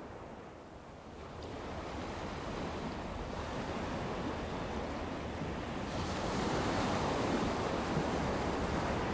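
Steady rushing noise like surf or wind, building from about a second in and louder again from about six seconds in.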